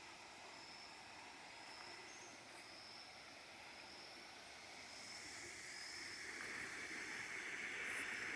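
Forest ambience: a soft steady hiss with a short high call repeating about once a second, and a rushing noise that swells steadily louder from about halfway in.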